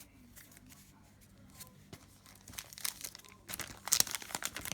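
Hockey card pack wrapper being torn open and crinkled. Faint rustling at first, then a burst of crackling from about two and a half seconds in, loudest near the end.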